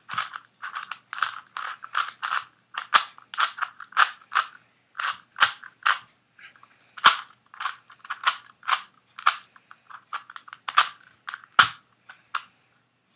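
A new 3x3 Rubik's Cube being turned by hand, its plastic layers clacking in a quick, irregular run of about two turns a second, with a short pause about six seconds in.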